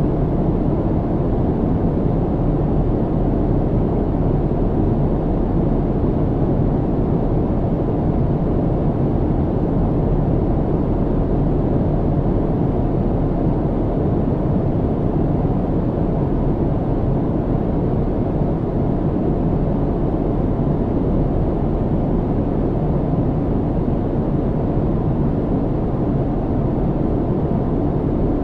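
Steady low rumble and hiss of an airliner cabin in flight, the engines and airflow making an even drone with no changes.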